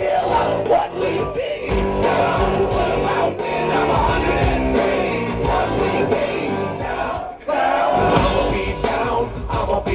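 Loud live music through a stage PA with a man's voice on the microphone over it; the music drops out briefly about seven seconds in and comes straight back.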